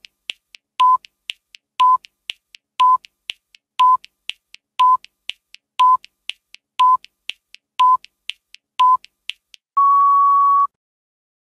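Countdown timer sound effect: a short electronic beep once a second, ten times, with fainter quick ticks between the beeps, then one longer, slightly higher beep about a second long as the count reaches zero.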